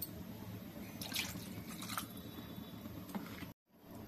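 Thin chicken gravy in a pan splashing and dripping in a few small wet taps as it is stirred and chicken pieces are dipped in, over a low steady hum. The sound cuts out briefly near the end.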